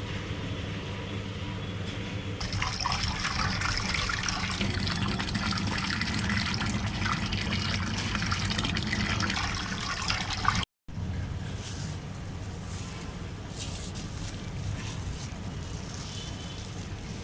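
Water pouring and splashing under a steady low hum. After a sudden cut about ten seconds in, it gives way to a quieter stretch of scattered short splashes and clicks.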